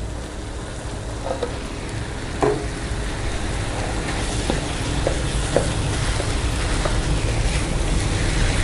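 Cooked rice tipped into a hot wok of butter with blended shallot and garlic and stirred with a spatula: a steady sizzle with scattered scrapes and knocks of the spatula on the pan. A low rumble under it grows louder toward the end.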